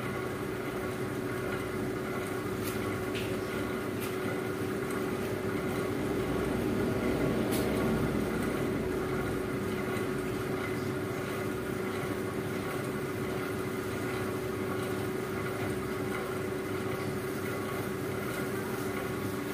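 Steady mechanical hum with a constant low tone, growing a little louder for a few seconds around the middle.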